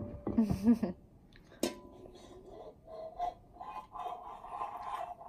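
Brief quiet vocal sounds, then a single clink with a short ring about a second and a half in as a glass mixing bowl touches a metal bundt pan. Soft vocal sounds follow while the chocolate cake batter is tipped out.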